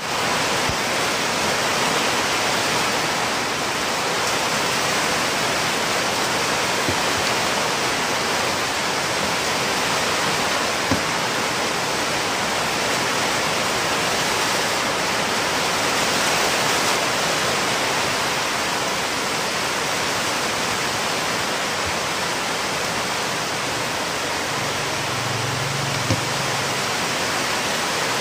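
A steady, even hiss like rushing water, with a few faint clicks and a brief low hum near the end.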